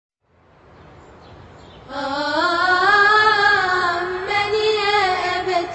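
A single high singing voice, the opening of a nasheed, comes in about two seconds in and holds one long wavering note that rises and then slowly falls. Before it, a faint hiss fades in from silence.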